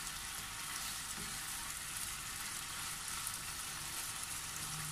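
String beans and pork belly sizzling steadily in a frying pan of soy and oyster sauce while being stirred with a wooden spatula.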